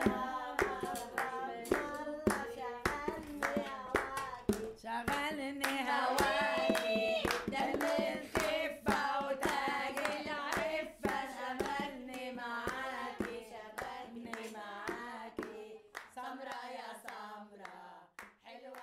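Singing accompanied by steady rhythmic hand clapping, a folk-style melody that trails off near the end.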